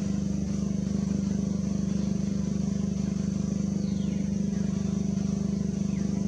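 Steady low motor hum with a fast flutter, like an engine idling.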